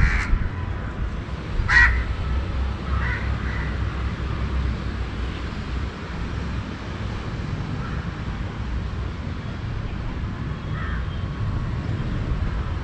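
Crows cawing, a handful of short scattered calls, the loudest about two seconds in and fainter ones later, over a steady low rumble of city traffic and wind.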